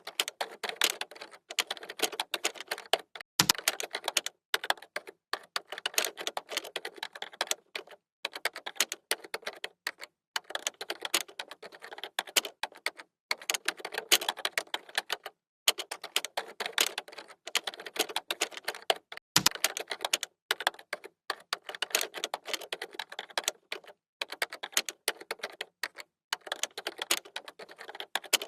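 Fast typing on a computer keyboard: rapid key clicks in runs of a second or two with brief pauses between them, and a heavier key strike, such as the space bar or enter key, twice.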